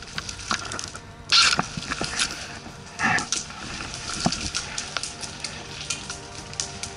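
Airsoft guns firing in a firefight: a short burst of rapid shots a little over a second in, then scattered single shots and clicks, with a brief loud call about three seconds in.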